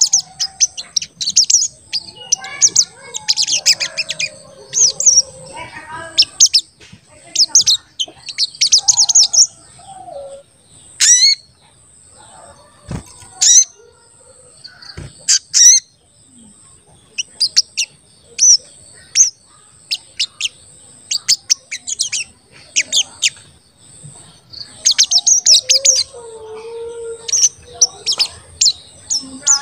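Olive-backed sunbird (sogon) singing: bursts of rapid, high 'cuit cuit' chirps, with short pauses between bursts. Two sharp knocks come a couple of seconds apart midway.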